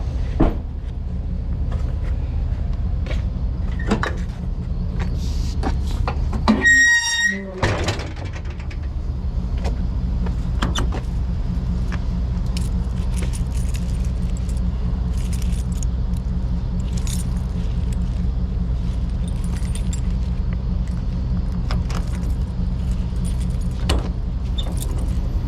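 Truck engine idling steadily, with scattered metallic clinks and clicks of battery cables and clamps being handled. About seven seconds in there is a short high beep, and the engine sound briefly drops out.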